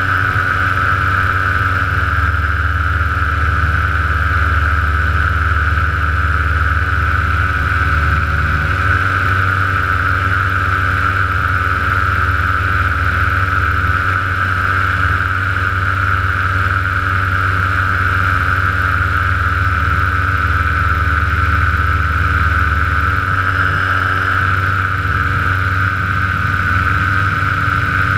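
Paramotor engine and propeller running steadily in flight: a constant drone with a steady high whine over it, unchanging throughout.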